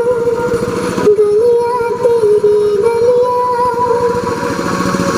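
Music played loud through a sound system: a wavering melody line over a dense, pulsing backing, with a vehicle engine running underneath.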